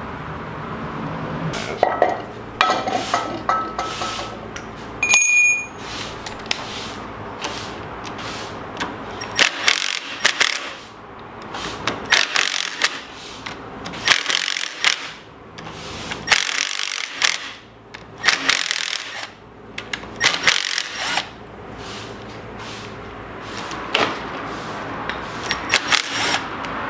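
Irregular clinks, clicks and knocks of hand tools and small metal parts being handled during engine work, with a short metallic ping about five seconds in.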